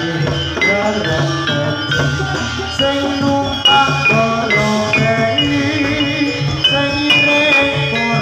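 Javanese gamelan music: metal mallet instruments strike a quick run of ringing melodic notes in a steady rhythm, over a low drum-like pulse.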